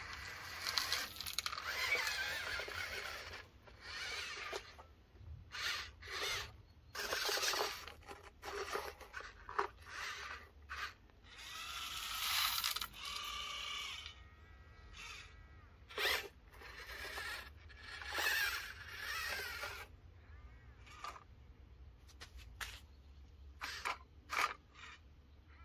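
Irregular scraping and crunching of soil or gravel from RC model construction vehicles at work, in uneven bursts with pauses between them.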